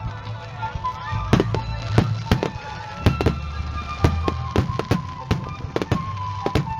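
Fireworks bursting in quick, uneven succession, several sharp bangs a second, with music playing underneath.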